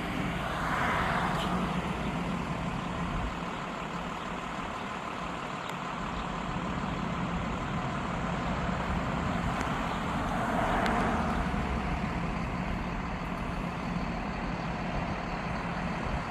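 Road traffic: two vehicles pass, one about a second in and another around ten seconds in, over a steady low engine hum. The tornado siren is not sounding.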